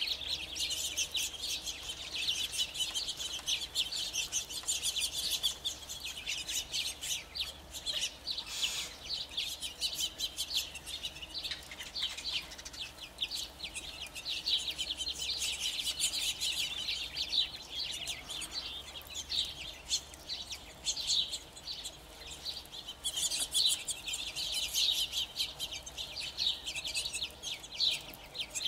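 A feeding flock of quail giving a continuous chatter of many short, high chips and soft clucking contact calls. The chatter thins out somewhat in the middle and grows busier again near the end.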